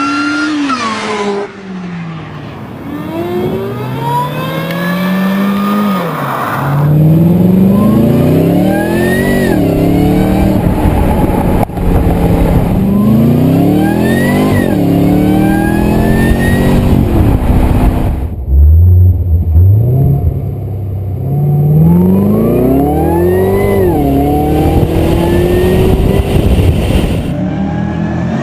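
Supercharged car engines revved hard again and again, several different cars in turn, each engine note climbing and falling with a higher supercharger whine rising along with it.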